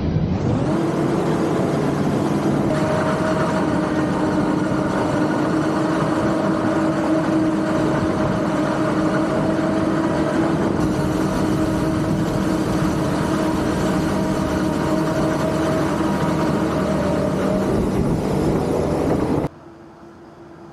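970 hp John Deere 9900i self-propelled forage harvester running under load while chopping standing maize, heard close to its header: a loud, steady machine din with a constant whine. Near the end the sound drops suddenly to a much quieter, steady hum.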